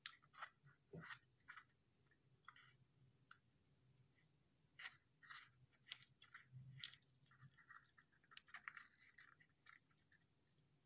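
Near silence, with faint scattered clicks and light taps.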